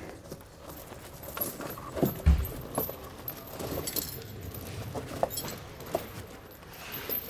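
Steel square-link tire chains clinking and jangling in short, scattered rattles as they are hooked and adjusted on the tire. There is one dull thump about two seconds in.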